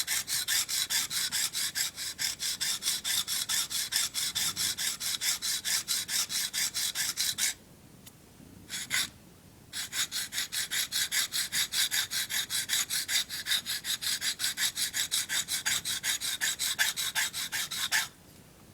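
Steel knife edge worked back and forth on a DMT diamond sharpening plate, grinding away a chipped tip. Quick, even rasping strokes, about five a second, stop for about two seconds roughly halfway through, then resume until just before the end.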